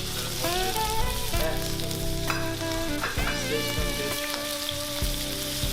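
Shrimp frying in hot olive oil in a wok on high heat: a steady sizzle.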